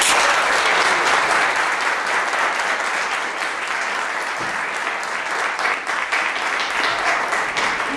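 Audience applauding: many hands clapping at once, loudest at the start and easing off slightly toward the end.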